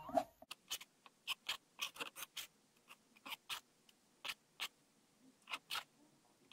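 Metal palette knife scraping and tapping against a canvas and plastic sheet as it works thick acrylic paint: a string of short, irregular scratches and taps, about two a second.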